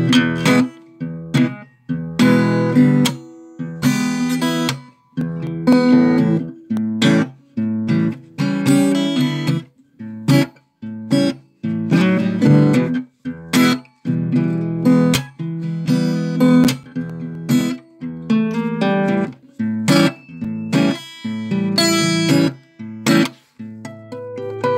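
Music: an acoustic guitar strumming chords in a steady rhythm, with short breaks between strums.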